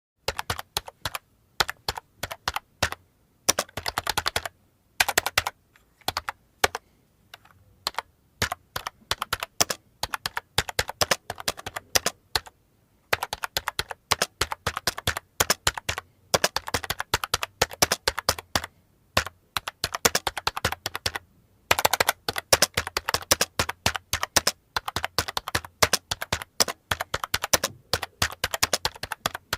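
Typing on a computer keyboard: runs of rapid keystrokes separated by brief pauses of a second or two.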